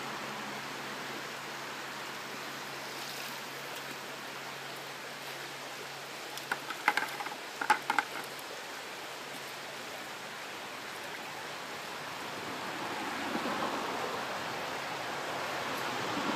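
Creek water flowing steadily, with a quick clatter of sharp knocks about seven seconds in as a cast net is shaken out into a plastic bucket of minnows.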